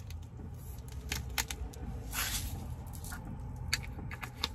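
Salt grinder being twisted, crunching pink salt in irregular clicks and short crackling bursts over a low steady hum.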